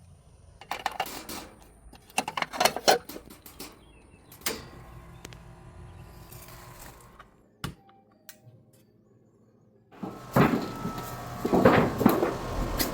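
Clicks and light clatter of parts and tools being handled while the run capacitor of an outdoor central-air condenser unit is swapped. About ten seconds in, a steady noise starts with a few louder surges: the condenser fan running.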